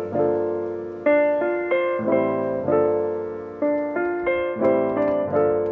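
Background music: piano chords, each struck and left to fade, in a slow steady pattern.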